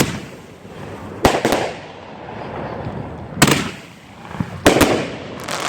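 Consumer fireworks bursting in the air: a quick double bang about a second in, then single bangs at irregular intervals of one to two seconds, each with an echoing tail.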